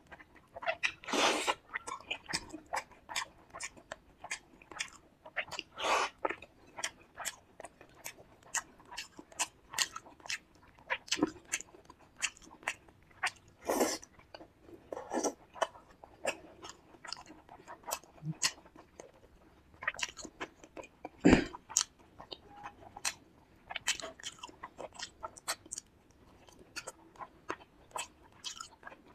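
Close-miked chewing and wet mouth sounds of a person eating a fish curry meal with rice, irregular smacks and clicks with a few louder crunchy bites, the loudest about two-thirds of the way through.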